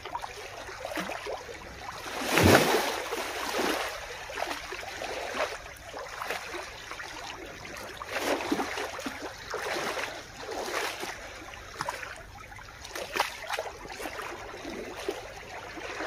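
Sea water washing and splashing among shoreline rocks in repeated surges, with a louder splash about two and a half seconds in.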